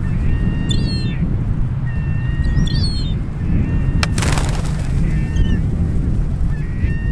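Wind rumbling on the microphone, with repeated short bird calls over it and a single sharp click about four seconds in.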